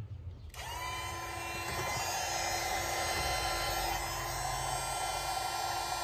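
Handheld electric chain sharpener spinning up about half a second in, then running steadily with a high whine as its grinding stone sharpens the cutters of a saw chain.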